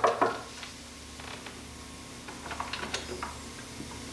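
Knuckles knocking on a room door; the last knocks of a quick series fall at the very start. Faint scattered clicks and taps follow.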